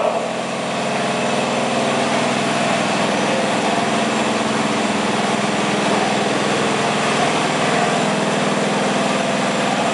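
Garden tractor's small engine running at a steady speed, with an even, unchanging drone.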